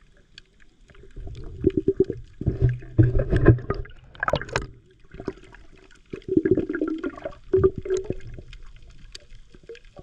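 Water gurgling and sloshing, heard muffled from underwater, in two irregular bursts: about one to five seconds in and again about six to eight seconds in.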